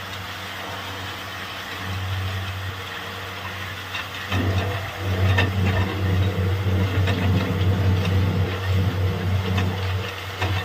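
Engine of a borewell drilling rig running steadily. About four seconds in it grows louder and is joined by repeated knocking and clattering.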